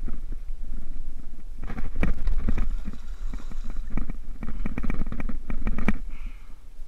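Water splashing and slapping as a hooked fluke (summer flounder) thrashes at the surface and is scooped into a landing net, from about two seconds in until near the end. A steady low rumble runs underneath.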